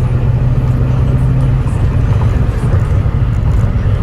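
Car engine running with road noise: a steady low hum.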